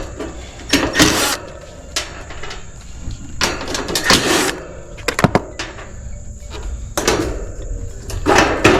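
Sheet-metal side access panel of a heat pump outdoor unit being unfastened and pulled open: a series of irregular knocks, rattles and scrapes.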